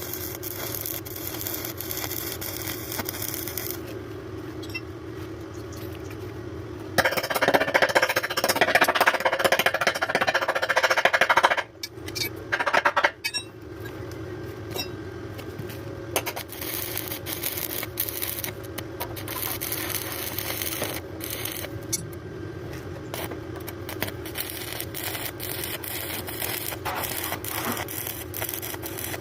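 Electric arc welding: a steady hum, then from about seven seconds in a loud crackling hiss of the arc for about five seconds, with a short second burst just after. Scattered clicks and light scraping of metal follow.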